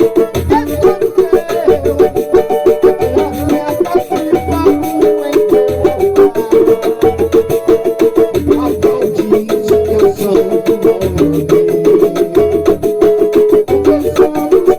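Banjo picked in a quick, steady stream of notes through an instrumental passage of a worship song, over a low beat that repeats about once a second.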